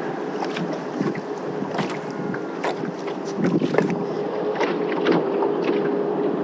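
Sounds on a small fishing boat while a fish is being played: a steady faint hum with irregular clicks and knocks, and wind on the microphone.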